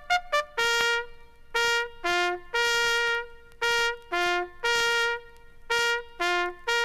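Solo bugle sounding a military bugle call: a few pitches of the natural horn series, long held notes alternating with short quicker ones.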